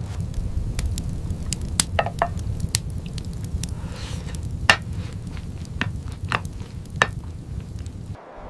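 Irregular sharp clicks and crackles over a steady low rumble. The sound cuts off abruptly near the end.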